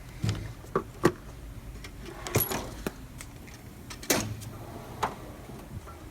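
Steel Snap-on toolbox drawers being shut and pulled open, with tools clinking and rattling inside them: a string of separate knocks and clatters.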